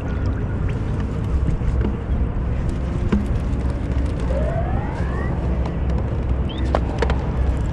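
Wind buffeting the microphone, a steady low rumble, with a few light clicks and a short rising whine about four to five seconds in.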